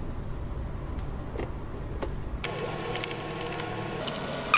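Small scattered clicks from a stranded copper wire and screwdriver being handled, over a steady background hum that changes to a higher, steadier drone about halfway through.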